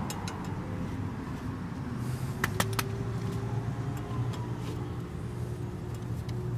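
Steady low background hum with a few sharp metallic clicks about two and a half seconds in, as the small T30 Torx retaining screw is fitted into the rear brake rotor by hand.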